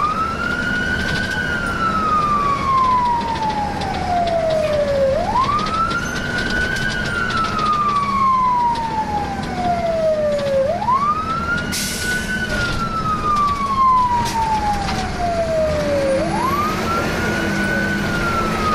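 Fire engine siren heard from inside the cab, wailing in a repeating cycle: each cycle rises quickly, then falls slowly, about every five and a half seconds. Underneath is the steady drone of the truck's engine.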